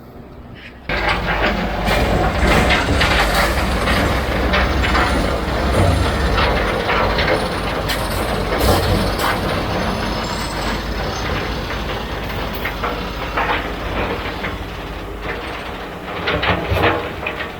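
A farm vehicle's low rumble with continual rattling and clanking. It starts suddenly about a second in and eases off near the end.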